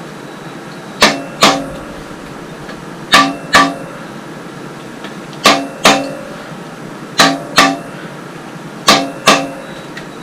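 The crankshaft of an International C60 engine being shoved forward and back in its main bearings, knocking against the thrust bearing with sharp metallic clunks that ring briefly. It happens in five pairs, one clunk each way, about two seconds apart. This seats the thrust bearing halves before the main caps are torqued.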